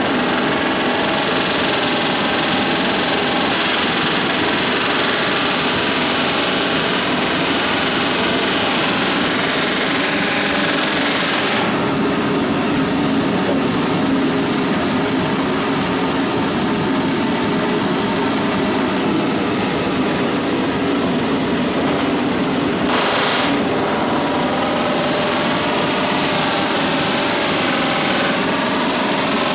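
Pneumatic rivet gun hammering hot rivets into a steel ship's hull plate from below, a loud, continuous rapid hammering that changes tone about twelve seconds in.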